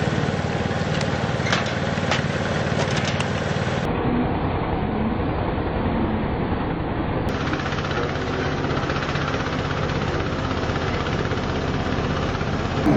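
A heavy vehicle engine running steadily, with a few sharp clicks in the first three seconds.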